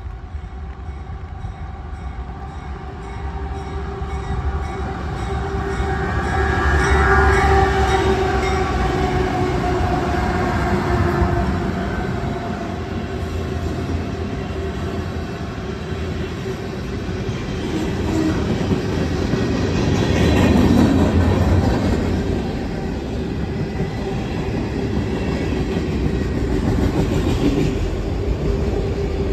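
CSX freight train approaching and rolling past: the diesel locomotives' rumble builds to its loudest about seven seconds in, then the cars run by with steady wheel and rail noise. The noise swells again about twenty seconds in.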